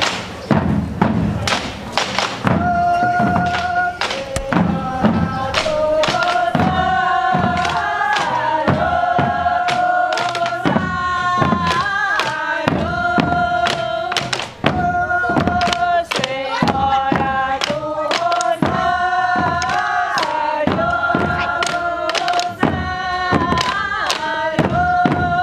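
Caixeiras do Divino: women beating rope-tensioned double-headed caixa drums with sticks in a steady beat, and singing a folk hymn together over it. The drums play alone at first; the voices come in about two and a half seconds in and hold long notes.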